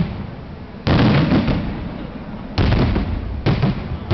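Daytime fireworks: aerial shells bursting overhead in a string of loud bangs, about four in as many seconds, each trailing off in a rumbling tail.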